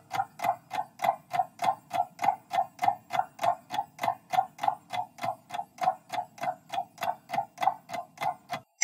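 Countdown timer sound effect: even clock ticks, about four a second, running while the time to answer counts down.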